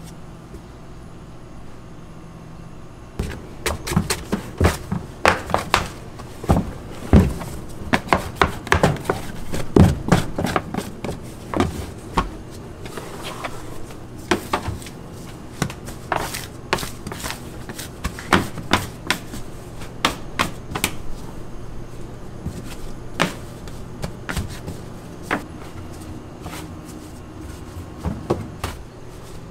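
Irregular knocks and clatter of a plastic dough tub and hands against a stainless-steel work bench as a large proofed bread dough is turned out. The knocking starts about three seconds in and is densest over the next several seconds, over a steady low hum.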